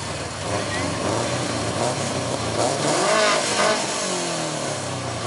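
Subaru Legacy's engine revved for its exhaust note, the revs climbing about three seconds in and then falling back, over crowd chatter.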